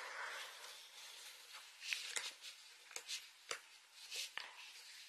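Digging tool scraping and chipping at a plaster excavation block: faint scratching with irregular sharp clicks as bits of plaster break away.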